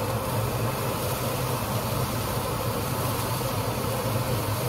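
Kitchen range hood exhaust fan running: a steady low hum with an even hiss over it.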